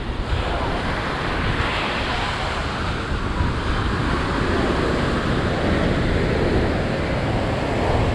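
Ocean surf washing onto the beach in a steady, continuous rush, with wind buffeting the microphone.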